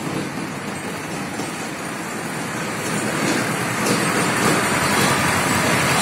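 Diesel engine of a JCB backhoe loader running as the machine moves, growing steadily louder.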